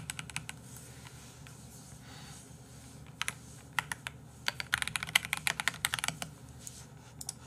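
Typing on a computer keyboard: a few scattered keystrokes, then a quick run of keystrokes about halfway through.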